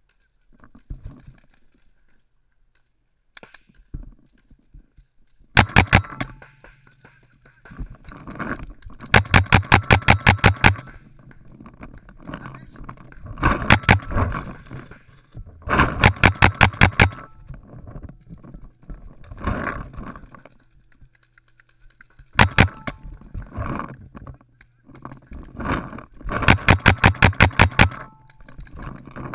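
Paintball markers firing in rapid volleys, several shots a second, in about seven bursts with short pauses between; the longest strings run two to three seconds.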